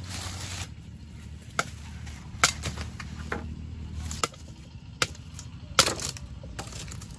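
A blade chopping through tall cane stalks: about seven sharp chops, roughly one a second, one of them doubled near the end.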